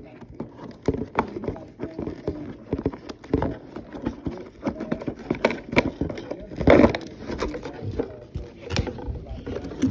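Hands handling a cardboard toy box and its cardboard insert, working at the twist ties that hold the toy: irregular rustles, scrapes and small knocks, with a louder bump about seven seconds in.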